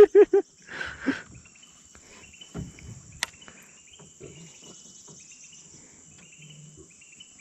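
Insects droning steadily at a high pitch, with faint short chirps scattered through it. A short burst of rhythmic vocal sounds, like a laugh, is the loudest thing in the first second.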